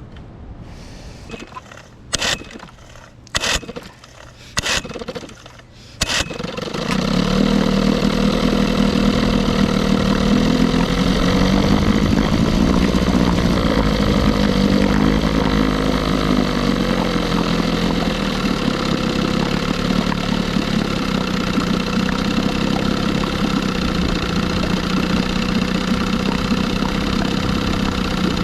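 1976 Johnson 6 hp two-stroke outboard being restarted with the pull-starter: several short sharp pulls, and it catches about six seconds in and runs steadily, its pitch wavering a little in the middle. The motor's idle needle is being tuned, and a moment ago it stalled with the needle turned in an eighth of a turn.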